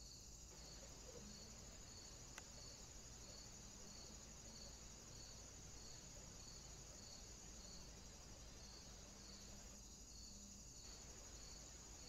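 Near silence with faint crickets chirping steadily, a high pulse about twice a second, over background hiss. One faint click about two and a half seconds in.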